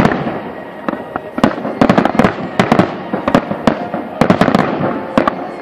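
Fireworks display: aerial shells bursting in a rapid barrage, many sharp bangs about three a second over a continuous rumble.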